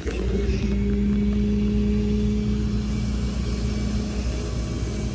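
Rollback tow truck's engine and hydraulic pump running while the tilt bed is worked: a steady low rumble with a steady hum, whose lower tone stops about four seconds in.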